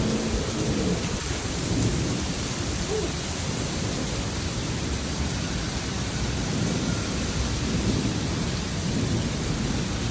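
Heavy rain pouring down in a steady, dense hiss. A low hum fades out in the first second.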